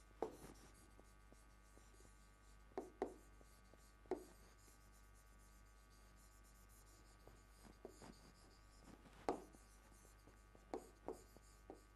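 Faint taps and short scrapes of a pen writing and drawing on a board, in small scattered clusters against near silence.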